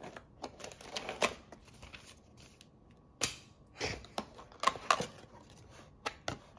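Cardboard box and paper insert being handled during an unboxing: irregular taps, scrapes and rustles of cardboard and paper, with the loudest sharp clicks clustered about three to five seconds in.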